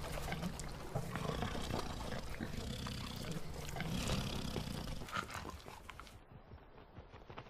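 Grizzly bear growling low and rough over a carcass, a steady rumble for about five seconds that then fades away.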